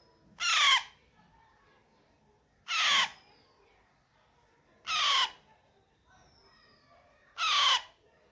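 Alexandrine parrot chick giving four loud, harsh, raspy calls, each about half a second long and falling in pitch, spaced a couple of seconds apart.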